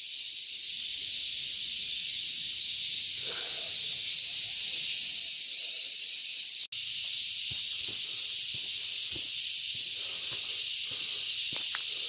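Cicadas (garengpung) calling together from the trees: a steady, high-pitched shrill drone, broken only by a split-second gap just past halfway. This call is taken locally as a sign of the dry season.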